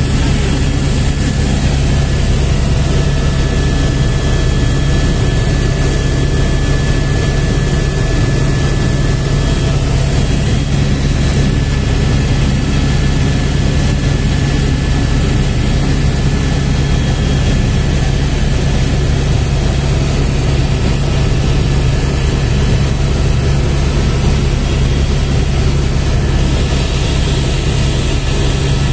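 Helicopter engine and rotor heard from inside the cabin in steady flight: a constant loud drone with a thin steady whine above it.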